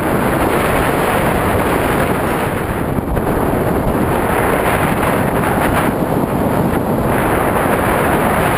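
Wind noise from airflow rushing over the camera's microphone in paraglider flight: a loud, steady rush.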